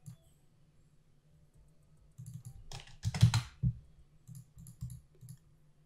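Computer keyboard typing and mouse clicks in short clusters starting about two seconds in, with a brief louder rush of noise about three seconds in.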